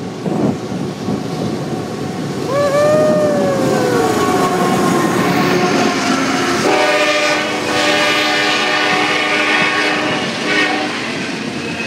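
Freight train passing close by, rumbling throughout. From a few seconds in, the locomotive's air horn sounds, its pitch sliding down as it goes past. Past the halfway point a steady many-toned sound holds for several seconds while the cars roll by.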